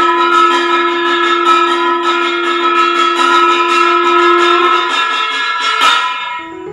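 Temple bells ringing: several steady ringing tones sound under repeated irregular strikes, fading out about five to six seconds in.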